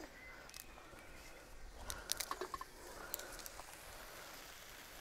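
Metal garlic press squeezing whole garlic cloves over a hot pan, giving a quick run of faint clicks and cracks about two seconds in, over the faint sizzle of diced chicken frying.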